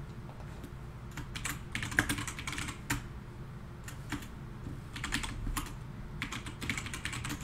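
Computer keyboard typing: quick runs of keystrokes in several short bursts with pauses between, the first starting about a second in.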